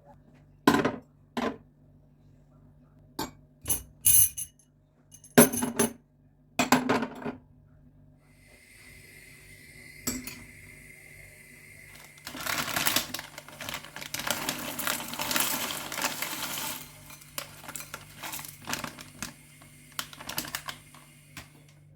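Dishes and cutlery clinking and knocking several times, then a steady hiss of running water starting about eight seconds in, louder for a few seconds in the middle, with more small clinks near the end.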